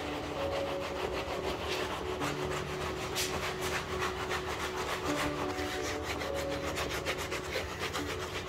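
Gloved hand rubbing the scuffed, worn leather of a sofa seat in quick, repeated back-and-forth strokes.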